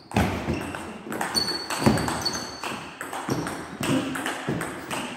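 Table tennis rally: the celluloid ball clicking sharply back and forth between the rubber-faced bats and the table, about two to three hits a second, echoing in a large hall. A brief high squeak sounds near the middle.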